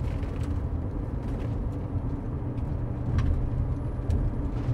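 A car driving, with steady low road and engine rumble.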